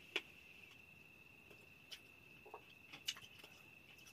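Faint, steady high-pitched insect trill, typical of crickets at night, with a few faint scattered clicks and taps.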